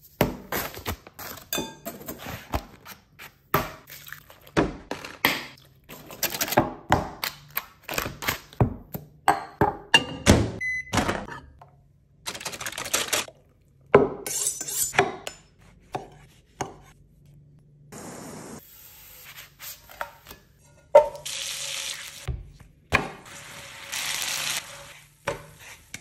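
A run of kitchen prep sounds: knocks and clinks of utensils and ingredients against a glass mixing bowl and a wooden board, then a steady hiss for a few seconds near the end from butter bubbling in a frying pan.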